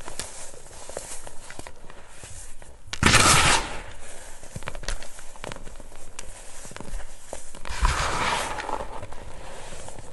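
Hands scooping and sifting baking soda powder in a plastic basin: close, crisp crackling and crunching, with two louder rushing bursts about three and eight seconds in.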